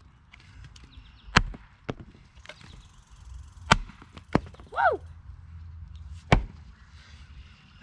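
Axe chopping firewood: three sharp, loud blows into wood, evenly spaced about two and a half seconds apart, with lighter knocks between them.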